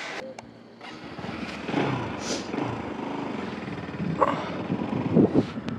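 Motorcycle running as it rolls across paving, engine and road noise rising about a second in, with a few brief louder sounds near the end.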